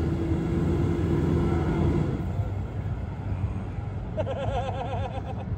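A van's engine running under load as it climbs a soft sand track, with a steady low rumble; a droning tone in it drops away about two seconds in. A short wavering whine comes near the end.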